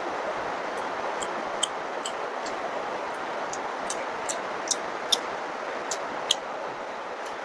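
Steady hiss of heavy rain falling, with sharp, irregular mouth clicks and smacks from chewing soft food close to the microphone.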